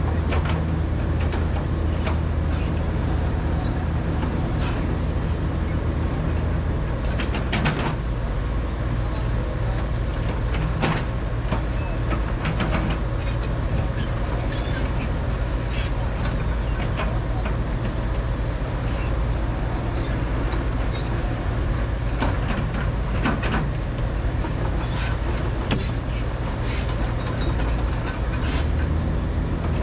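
Large crawler excavator's diesel engine running steadily, its deep drone easing about seven seconds in and coming back up near the end, with scattered metallic clanks and knocks.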